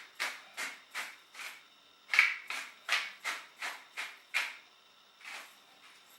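Pepper mill being twisted to grind pepper, a rapid series of gritty grinding strokes at about three a second, in two runs with a brief pause between and a couple of slower twists near the end.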